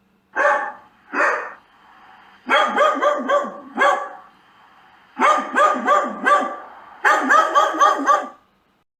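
A dog barking: two single barks, then three quick runs of five to seven barks each, stopping about eight and a half seconds in.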